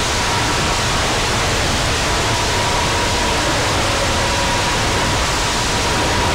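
Steady, loud static-like hiss of noise with a faint thin tone coming and going, part of the background music track.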